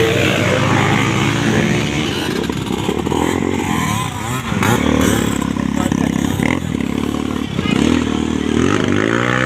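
Motocross dirt bike engines revving and accelerating, their pitch rising and falling again and again.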